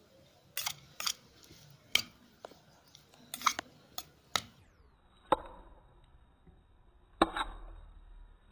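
Steel spoon clinking against a stainless steel bowl while tossing cut raw mango pieces: a string of sharp, unevenly spaced clinks.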